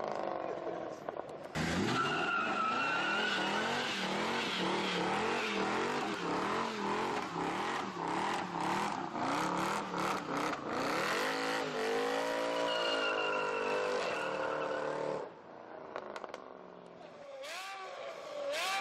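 Supercar engine held at high revs, its pitch swinging up and down about once a second, with tyre squeal and skidding, as in donuts or drifting. It cuts in abruptly about a second and a half in and drops away suddenly around 15 seconds, with sharp rev blips near the end.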